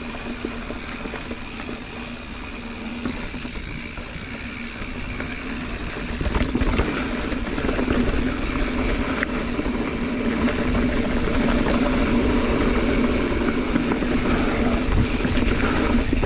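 Mountain bike rolling along a dirt trail: steady tyre rumble and wind noise with a constant hum, growing louder about six seconds in as the bike picks up speed.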